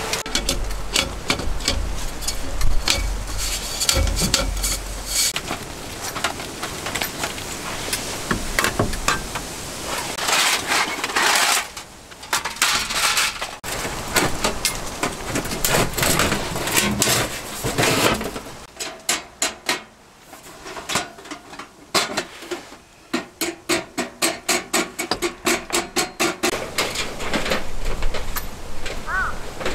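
Irregular knocking and clatter of gear being handled, then a steady run of sharp hammer strikes, about three a second, each ringing briefly, in the last third.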